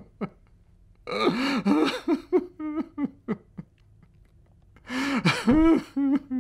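A voice crying without words in two bouts of gasps and short sobbing breaths, the first starting about a second in and the second near the end.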